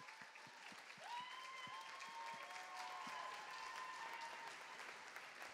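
Audience applauding at the end of a dance. A few held whoops sound about a second in, and a steady low beat fades out during the first seconds.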